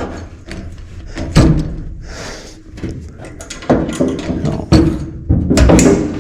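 A series of irregular metal knocks and clunks, from handling and repositioning a fire extinguisher and its billet mount on a truck's roll bar. The sharpest knocks come about a second and a half in and in a quick run near the end.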